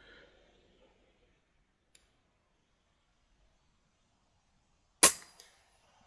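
FX Impact .177 PCP air rifle firing once: a single sharp shot about five seconds in, followed by a fainter knock about half a second later.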